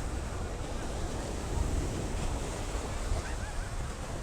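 Ocean surf washing on a beach, with wind rumbling on the microphone.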